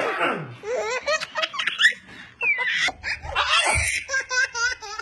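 Babies laughing: giggles and belly laughs in short, breathy bursts, with a high squeal about halfway through.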